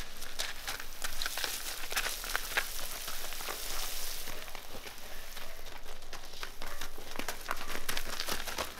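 Garden hose spray hissing and pattering onto a foal and the gravel around it, with crunching of hooves shifting on gravel.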